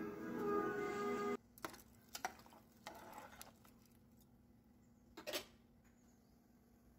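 Background music that cuts off about a second and a half in, followed by a few faint clicks and knocks of a ladle and lid against an aluminium pressure cooker pot, the last one the loudest.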